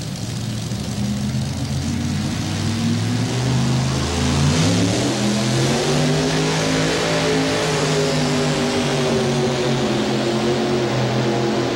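Mini rod pulling tractor's supercharged Chevrolet engine revs up sharply about four seconds in, then holds at high, steady revs under load as it pulls the sled down the track.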